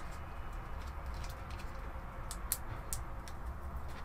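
Thin plastic bags of resin miniatures being handled: scattered small clicks and crinkles, with two sharper clicks about two and a half and three seconds in, over a low steady hum.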